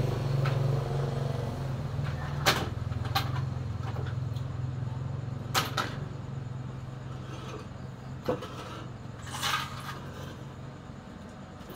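Computer motherboards being handled by the sack, giving several sharp knocks and clatters of circuit boards, over a steady low hum that fades away in the last few seconds.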